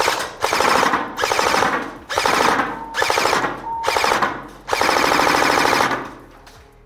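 E&L AK74MN full-steel electric airsoft rifle firing on full auto: its gearbox cycling in rapid clicking bursts. There are about six bursts of half a second to a second and a half each, with short breaks between them, and the firing stops about six seconds in.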